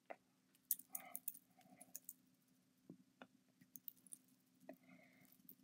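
Faint crackly clicks of fingers poking and pressing into slime topped with sprinkles, glitter and confetti, over a low steady hum.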